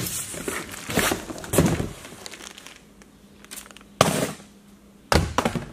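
Cardboard box flaps being pulled and handled, crinkling and rustling, then two sharp knocks about a second apart near the end as things are set down on the box.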